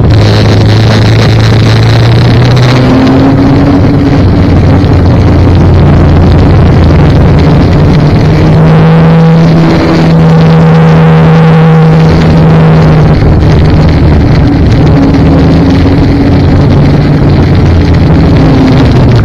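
Snowmobile engine running loud and steady while riding along the trail, heard close from the machine the camera rides on. Its pitch climbs about a third of the way in, rises further around the middle, then eases back in the last few seconds.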